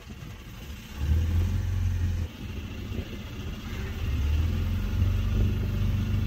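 Boat motor running steadily with a deep hum. It gets louder about a second in, dips briefly after two seconds and builds up again from about four seconds.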